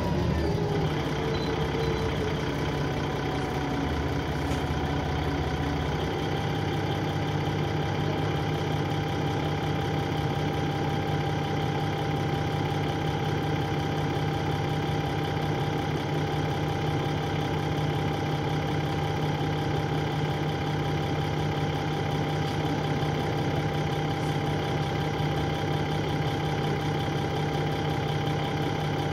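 Dennis Trident 2 double-decker bus engine settling to idle about a second in, then idling steadily, with a steady whine held over the engine note: the loud turbo whine this bus is known for.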